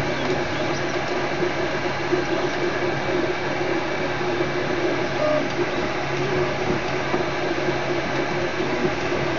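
MakerBot Replicator 2 3D printer printing: the stepper motors driving the extruder head over the build plate, with the steady hum of its cooling fan.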